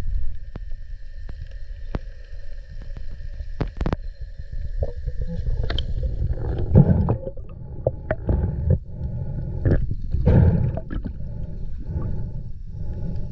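Underwater sound picked up by a submerged camera: a steady low rumble of moving water and stirred sand, with many sharp clicks. Louder surges come about seven and ten seconds in.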